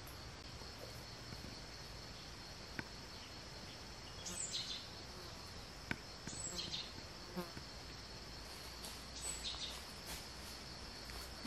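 Insects droning steadily at a high pitch, with a few short high chirps over them and a couple of sharp clicks.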